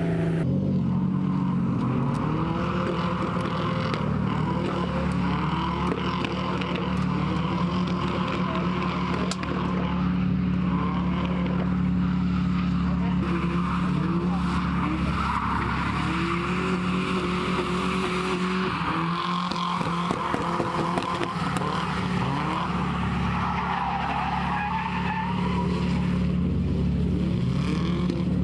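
Drift cars running on a short track: engines revving up and falling back again and again, with tyres skidding.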